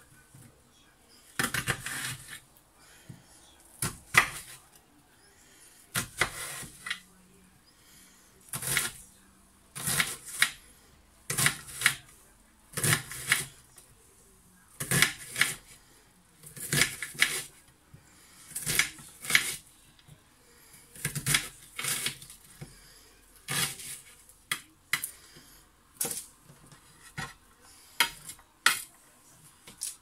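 Knife cutting up onions on a chopping board: a long run of sharp cuts and taps, roughly one a second, sometimes two close together.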